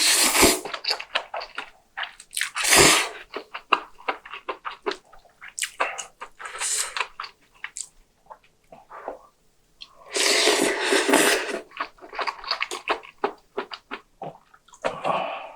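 Close-miked eating: wet chewing and many small mouth clicks, broken by loud, wet slurps at the start, about three seconds in, from about ten to eleven and a half seconds, and near the end.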